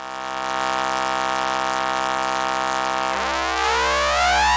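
A Eurorack synth tone: a triangle wave through a bit crusher and high-pass filter, giving a steady buzzy drone with many overtones. About three seconds in, the overtones start sweeping upward in a rising whine as the level of the triangle wave feeding the bit crusher is turned up. The pitch underneath stays the same.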